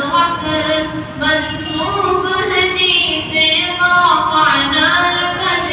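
A boy singing a naat (Urdu devotional poem praising the Prophet) unaccompanied, with long held notes that slide up and down in pitch.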